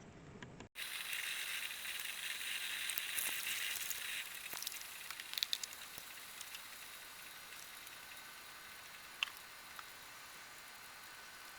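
Gas hissing from a camp stove burner being started for coffee, with scattered light clicks and clinks of cookware. The hiss is strongest for the first few seconds, then settles to a steady lower hiss.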